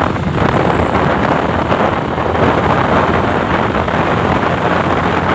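Steady loud rush of wind over the microphone of a motorcycle riding at speed, with the bike's engine running underneath.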